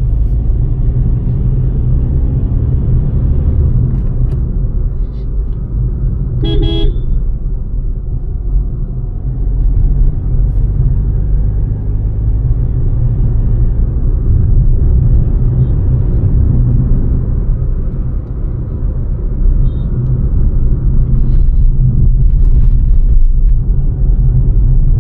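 Maruti Suzuki Fronx on the move, its engine and tyre rumble heard from inside the cabin as a steady, loud low drone. A car horn toots once, briefly, about six and a half seconds in.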